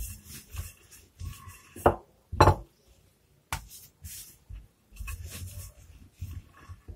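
Wooden rolling pin rolling out a disc of bread dough on a countertop, with knocks as the dough is turned and flipped and the pin is set down and picked up. The two loudest knocks come about two and two and a half seconds in, and a low rumble of rolling follows around five to six seconds in.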